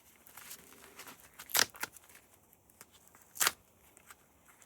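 Two short, sharp knocks of metal parts being handled and set down on a workbench, about two seconds apart, with quiet in between.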